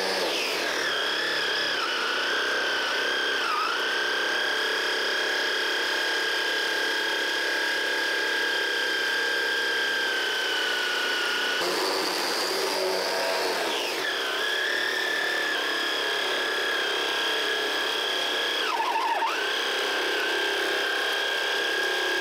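High-pitched whine of the four-motor gearbox driving a 3D-printed centrifugal water pump at speed. The pitch dips briefly twice. After an abrupt break about twelve seconds in, it starts high, falls and then settles.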